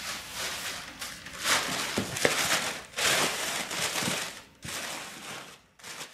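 Packing paper rustling and crinkling in a cardboard box as it is folded and pressed down by hand, in several bursts with short pauses.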